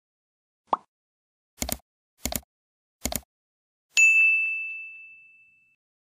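Subscribe-animation sound effects: a short pop, three quick double clicks, then a single bright bell-like ding that rings out and fades over about a second and a half.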